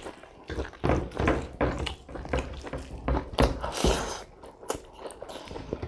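Close-miked eating sounds: chewing of pork and rice eaten by hand, with irregular wet mouth clicks and a longer noisy stretch about three and a half seconds in.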